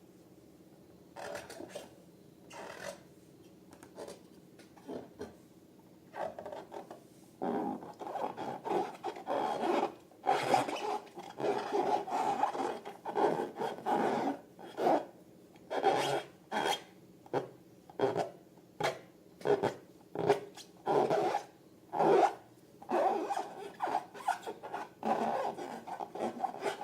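Hands squishing and rubbing slime and rubber balloons: a run of short rubbing, squelching strokes, sparse and faint at first, then louder and about one a second from around seven seconds in.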